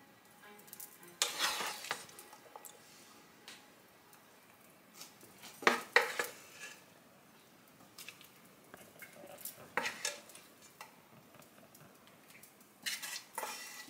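Wooden spoon scraping and knocking against a frying pan as hot sautéed onion, carrot and sweet pepper are spooned out, in four short bursts of clatter, the loudest about six seconds in.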